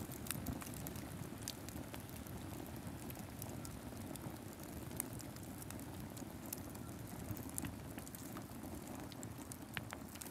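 Steady low rumbling background ambience with scattered light crackles and ticks throughout.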